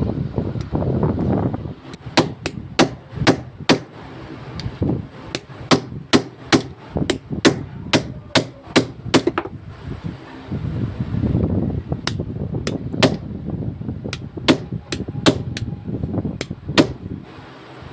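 Hammer tapping on the stuck ignition lock of a Hyundai i20 to free it. There are about thirty sharp metallic taps in irregular runs, two to three a second, broken by stretches of duller handling noise.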